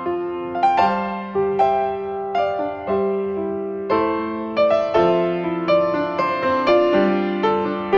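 Background music played on piano: a gentle melody of struck notes, about two a second, each ringing and fading.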